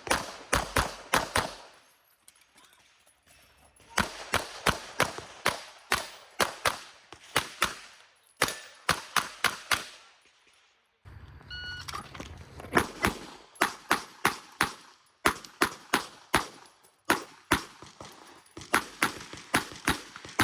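Glock 48 9mm pistol firing rapid strings of shots, mostly in quick pairs, with brief pauses between strings. About halfway through, a shot timer's start beep sounds and the firing begins again shortly after.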